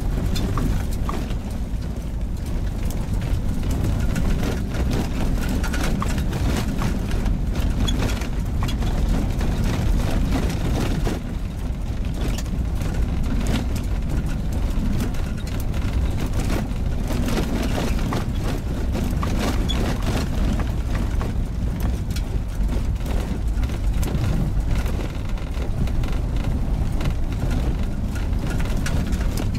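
Car driving on a gravel forest road, heard from inside the cabin: a steady low rumble of engine and tyres, with many scattered small ticks and knocks from gravel and bumps.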